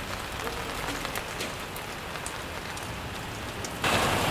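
Steady rain falling, an even hiss with scattered drop ticks. Near the end a car pulling up comes in abruptly and much louder, the noise of its engine and tyres.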